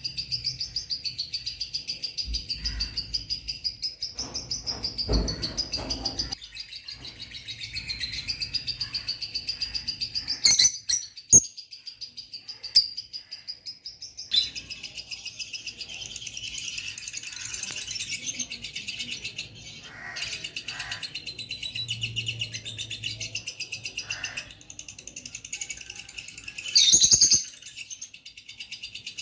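A pair of lovebirds chattering: a fast, continuous stream of high chirps, with a few louder, sharper bursts about ten seconds in and again near the end.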